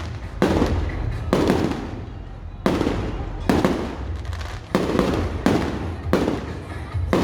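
Fireworks going off in a quick series: about seven sharp bangs, roughly one every second, each followed by a fading rumble.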